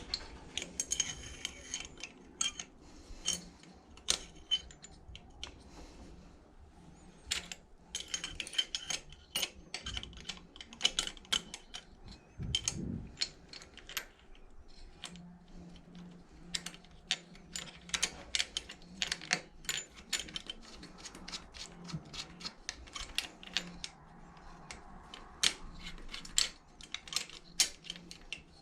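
Irregular light metallic clicks and taps of small engine parts being handled and fitted: push rods and rocker arms going into the valve train of a Predator 212 engine.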